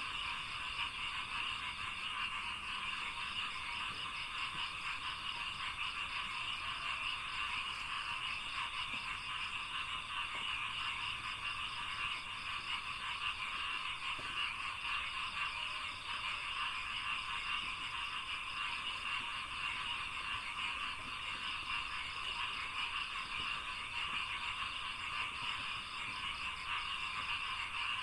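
A dense, unbroken chorus of many frogs calling in a rice paddy, with a steady high-pitched hiss above it.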